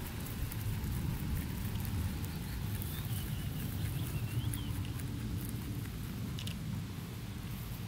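Rabbits chewing fresh grass blades close up: a run of quick, crisp little crunches over a low steady rumble.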